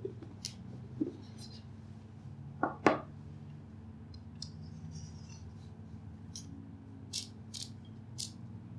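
Scattered light clicks and taps from handling a hand coffee grinder and its metal parts, with two sharp knocks close together about three seconds in. A steady low hum runs underneath.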